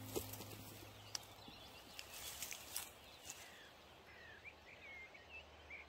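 Faint birds chirping, a few short calls in the second half, with scattered light clicks and rustles. Soft background music fades out in the first second.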